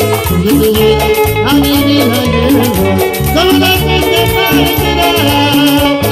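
Peruvian chicha (cumbia) band music with a steady, even beat of bass and percussion and a lead melody with pitch bends over it.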